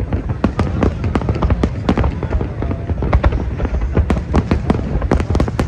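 Fireworks display: a dense barrage of cracks and bangs, several a second, overlapping over a continuous low rumble of shells bursting.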